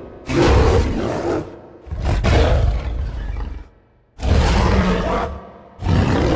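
Imitation King Kong roars, four in a row, each starting suddenly and fading off over about a second and a half.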